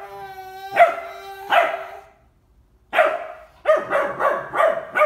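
Bernese Mountain Dog puppy barking in high, short barks: two barks over a long held whine in the first two seconds, a short pause, then a quicker run of about six barks.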